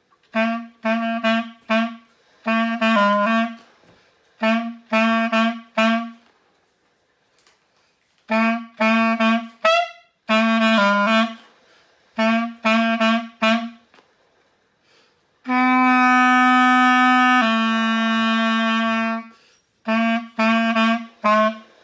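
Solo clarinet playing a simple tune built on two neighbouring low notes, C and B-flat, each note short and tongued, in short phrases of three or four notes with pauses between. Near the end two long held notes, then one more short phrase.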